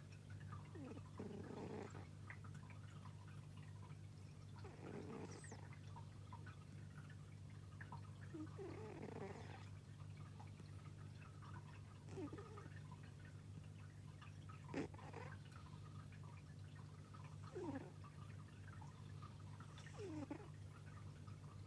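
A sleeping pet snoring faintly, a short rasping breath about every three seconds, over a steady low hum.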